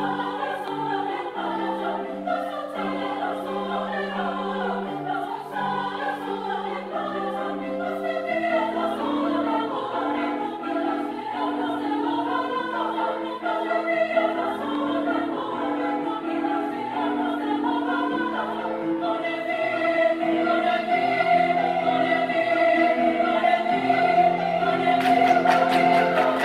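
Women's choir singing in parts with piano accompaniment, swelling louder in the last third. Near the end the singers join in with quick, rhythmic hand clapping.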